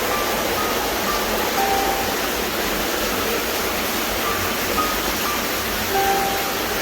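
Steady rush of flowing water echoing in a cave, an even hiss, with a few faint short notes at different pitches scattered through it.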